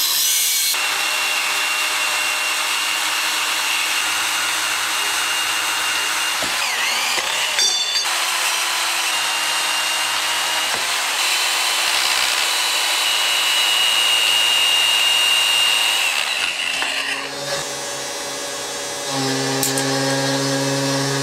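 Power tools cutting steel square tubing: an angle grinder with a cut-off wheel, then a chop saw, making a steady, loud grinding hiss with a high whine, broken off briefly partway through. Near the end the cutting stops and a lower steady hum takes over.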